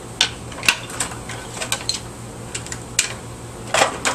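Irregular clicks and clatters of the small vacuum's plastic housing parts being handled and pulled apart, about a dozen sharp knocks at uneven spacing over a steady low hum.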